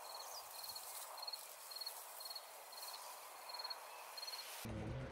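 Cricket chirping in a steady rhythm, about two short trilled chirps a second, over a soft field hiss. Near the end it cuts off abruptly to a duller, low rumbling background.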